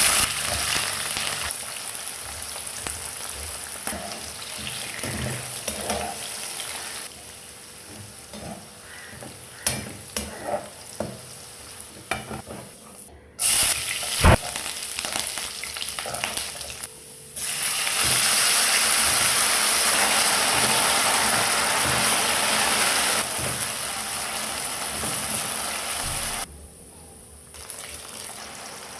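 Beef frying and sizzling in hot oil, in several stretches that change abruptly in loudness, the loudest and most even one in the second half. In a quieter stretch near the middle, a utensil clicks and knocks while the meat is stirred.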